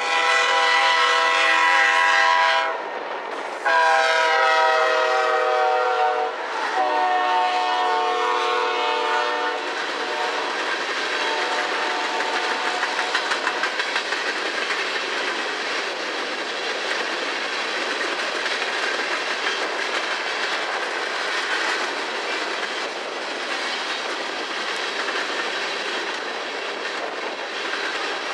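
A freight locomotive's air horn sounds three long blasts, the pitch dropping slightly in the later ones as it goes by. Then a coal train's gondola cars roll past with a steady rumble and the clickety-clack of wheels over the rail joints.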